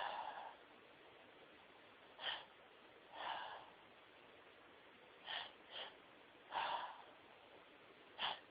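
The end of a woman's sneeze fading at the start, then about six short breathy gasps and sniffs at irregular spacing, the catching breaths of a sneezing fit.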